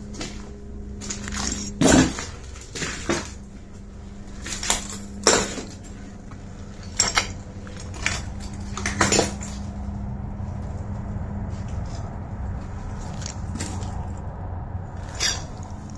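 Scattered knocks and clinks of hard objects, about eight at irregular intervals, over a steady low hum that fades about two-thirds of the way through.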